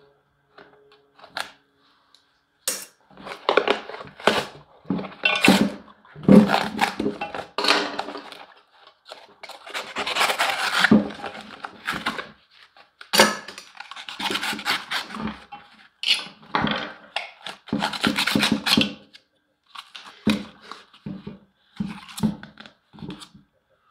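Handling noise from a blown 12-inch Skar VD-12 shallow-mount subwoofer being taken apart by hand: repeated irregular clattering and scraping of its metal basket and parts on a wooden table, some knocks ringing briefly.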